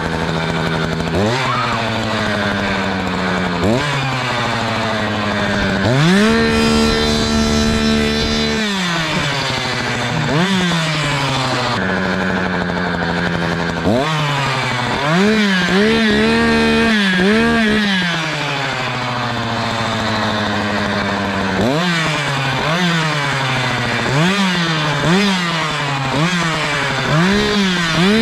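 Echo two-stroke chainsaw idling and being revved over and over in short throttle blips. About six seconds in, one rev is held high for two to three seconds; later the blips come in quick clusters of several.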